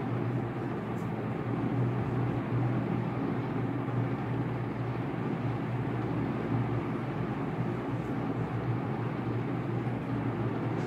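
Steady low hum with a hiss over it: constant background room noise.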